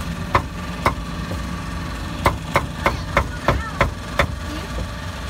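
Meat cleaver chopping on a chopping block: two strikes, then a quick run of seven at about three a second, over a steady low hum.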